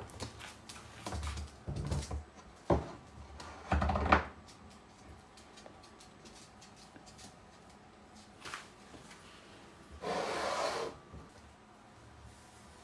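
A roll of packing tape falling off a kitchen counter: a few knocks and clatters, the loudest about four seconds in. About a second of rustling follows near the end.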